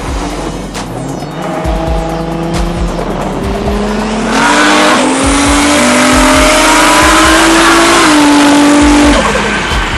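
Turbocharged car engine pulling hard under full throttle, its pitch climbing in steps and growing loud about four seconds in, then dropping off abruptly about nine seconds in. A music track with a steady beat plays underneath.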